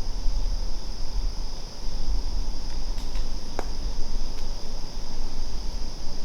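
A steady, high-pitched chorus of crickets over a constant low rumble on the microphone, with a couple of faint clicks near the middle.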